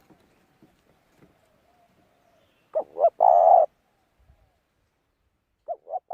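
A bird calling twice, each call two short notes followed by a longer held note, with faint thin bird calls before them.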